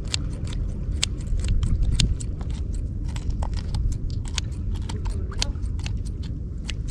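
Scissors snipping through a fish's skin and flesh while it is cleaned: a crisp, crunchy click with each cut, several a second at an uneven pace, over a steady low rumble.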